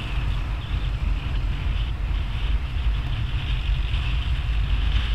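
Suzuki GS150SE motorcycle riding steadily at road speed: engine and road noise under a constant rush of wind over the microphone.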